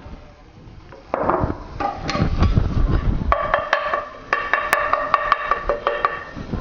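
Spatula knocking and scraping against a frying pan as scrambled egg is stirred and broken up, a rapid run of taps starting about a second in. Background music with steady held notes joins about halfway through.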